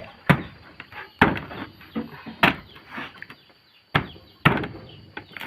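A blade chopping into a durian's hard, spiky husk to open it: five sharp strikes, unevenly spaced.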